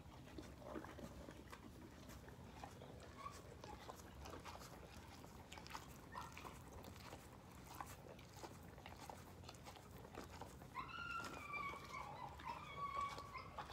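Faint clicks and rustles of a pony nosing about close to the microphone and a feed tub. Near the end comes a high, drawn-out whine lasting about three seconds.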